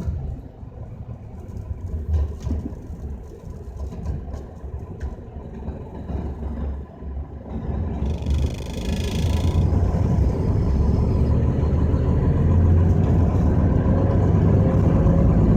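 Low rumble of a vehicle on the road in typhoon winds, swelling and falling in gusts and growing louder in the second half. There is a brief hiss about eight seconds in, and a rising engine note near the end.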